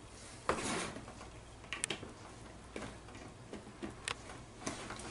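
Scattered light clicks and knocks as a plastic glue jug and a plastic tub are handled and set down on a table. The loudest knock comes about half a second in, with a short rustle after it.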